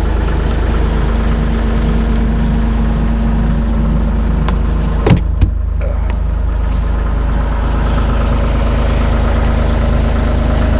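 John Deere 260 skid steer's diesel engine idling steadily, not long after a cold start. Two sharp knocks about five seconds in.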